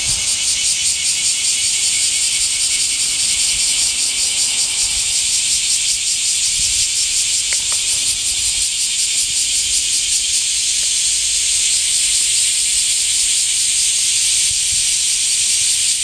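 Cicadas singing: a loud, steady, high-pitched buzz with a fast flutter running through it.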